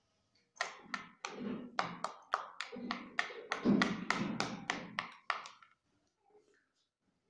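A metal spoon tapping and knocking against a plastic bowl, a quick run of taps at about three a second that lasts about five seconds and then stops.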